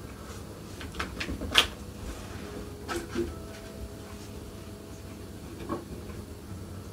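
About half a dozen light clicks and taps over a quiet, steady room hum, the sharpest about one and a half seconds in.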